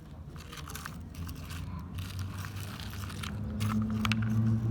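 Sand crunching and scraping with scattered short clicks as toy construction vehicles are pushed through it. A steady motor hum comes in about three seconds in and grows louder toward the end.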